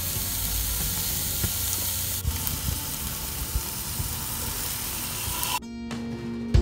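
Food frying in a hot pan, a steady sizzle that cuts off suddenly near the end, where music with plucked guitar takes over.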